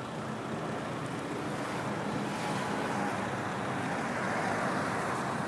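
Steady rushing noise of wind on the microphone, growing slightly louder, with no boom or bang.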